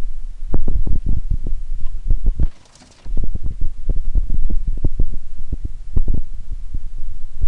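Microphone buffeting: dense, irregular low thumps over a deep rumble, breaking off in a brief lull about two and a half seconds in.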